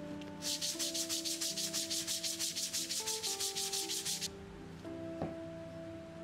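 Quick, even back-and-forth strokes of an abrasive worked by hand over wood, about seven or eight strokes a second, stopping abruptly about four seconds in.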